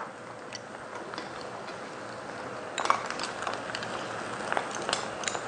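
Metal spoon clicking against a small pot and clam shells as cooked clams and shrimp are scooped out, in scattered clinks, over a steady hiss of the pan cooking on the gas burner.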